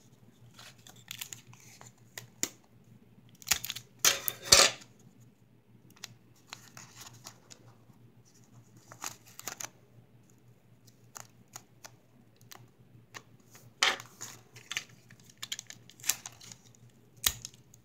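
Clear sticky tape being pulled off its roll and torn, and paper crinkling as it is taped down around the edges of a homemade paper squishy; a run of short rips, the loudest about four seconds in and again near fourteen seconds.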